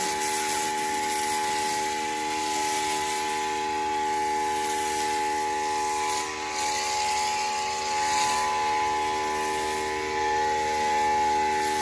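Electric pressure washer running: a steady motor whine with several fixed tones under the hiss of the water spray, swelling a little now and then.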